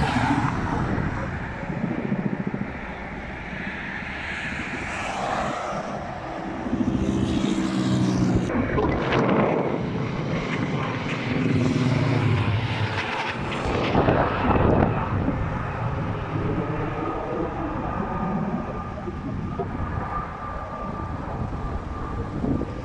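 Firefighting aircraft engine drone over the fire area, with a propeller plane's steady hum swelling and fading against wind and outdoor noise; the sound changes abruptly about eight seconds in.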